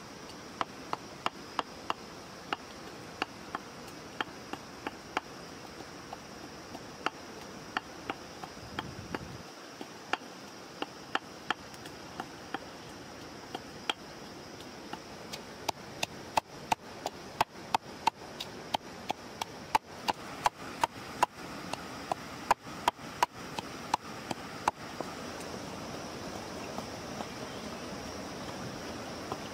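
Repeated sharp knocks of food being prepared by hand, about two a second, thinning out for a few seconds midway. A stream runs steadily underneath and is left on its own near the end when the knocking stops.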